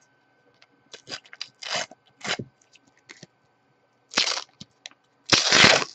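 A Panini sticker packet's shiny wrapper crinkling in the fingers in short bursts, then torn open, with a longer, louder rip near the end.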